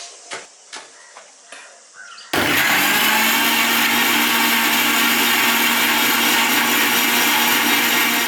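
A few light clicks and knocks, then about two seconds in an electric mixer grinder switches on suddenly and runs steadily and loudly, its motor giving a constant hum under a harsh whirring.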